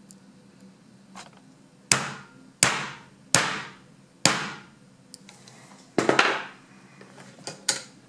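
Rubber hammer striking a narrow slotted screwdriver held on a euro cylinder's factory-crimped circlip, punching a slot into the clip so it can be removed. A series of sharp blows starts about two seconds in, mostly a second or less apart, with two lighter taps near the end.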